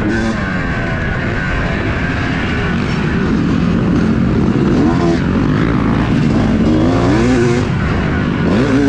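Yamaha YZ250 two-stroke single-cylinder motocross bike engine under hard riding. The revs climb and drop again and again as the throttle is worked through the gears.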